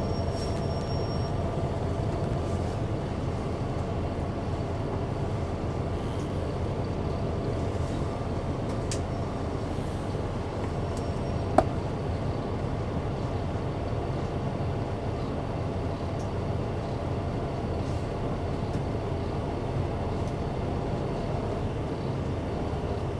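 Caterpillar C9 diesel engine and driveline of a 2004 Neoplan AN459 articulated bus, heard from on board, running with a steady drone and no revving. One sharp click or knock comes about halfway through.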